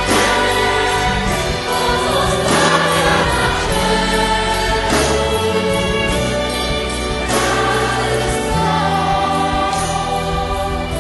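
Background music: a choir singing slow sacred music in long held chords that change every two to three seconds.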